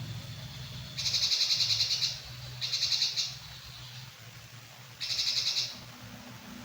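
Brinji kelabu bulbul calling: three loud, fast-trilled high calls, the first about a second long and the other two shorter, about a second, two and a half seconds and five seconds in. A faint low hum runs underneath.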